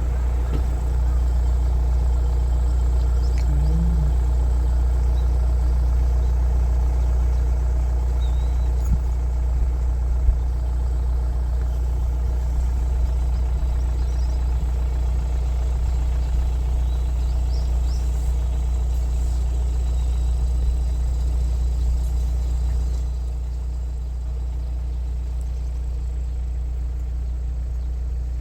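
Car engine running steadily, a constant low rumble that drops a little in level about 23 seconds in.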